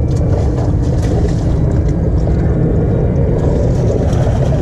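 Steady low rumble of wind buffeting the camera microphone on a small open boat, with a few faint ticks over it.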